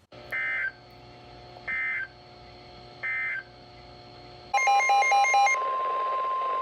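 Emergency Alert System signal from a NOAA Weather Radio broadcast. First come three short bursts of chirping SAME data header tones, each about a third of a second long, over a faint hum. Then, about four and a half seconds in, the loud steady 1050 Hz warning alarm tone starts, with a short beeping pattern over its first second, announcing a new warning.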